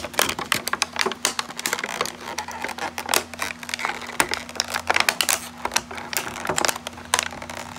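Clear plastic packaging crackling and clicking in quick, irregular snaps as a toy RC car is tugged against the plastic tray it is stuck in.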